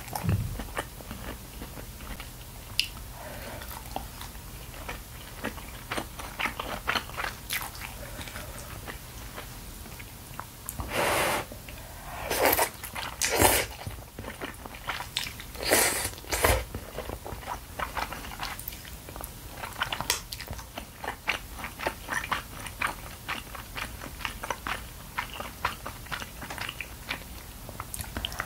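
Close-miked eating of fish cake udon: soft, wet chewing of fish cake and noodles with many small mouth clicks, and a few louder, longer noodle slurps in the middle.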